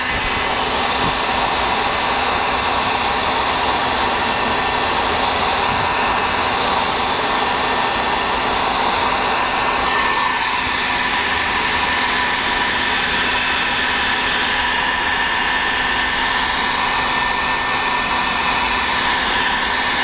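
Electric heat gun running steadily: an even rush of blown air with a steady whine, as it heats heat shrink tubing over soldered wire splices.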